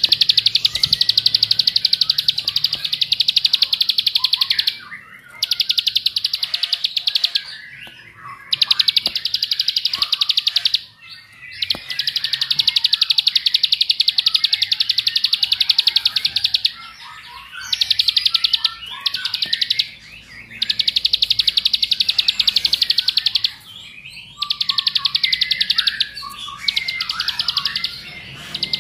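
Prinia (ciblek) singing a very fast, high, buzzing trill in runs of several seconds, broken by short pauses. This is the sustained rapid 'ngebren' song that ciblek keepers prize.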